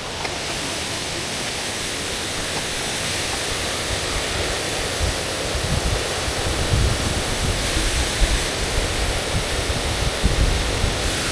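Ngardmau Falls waterfall, a steady rushing of falling water, with low rumbling bumps in the second half.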